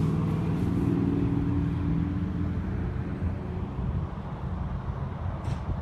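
Road traffic close by: a motor vehicle's engine hum over a steady low rumble, fading after about two and a half seconds.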